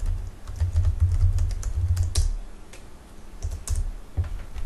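Typing on a Sager NP6165 laptop keyboard to log in: a quick run of key clicks with dull thumps through the desk for about two seconds. Then a few scattered clicks and knocks as the laptop is picked up.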